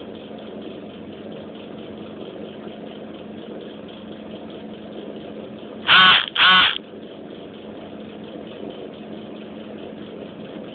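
A steady, low mechanical hum, broken about six seconds in by two loud, short, harsh pitched calls about half a second apart.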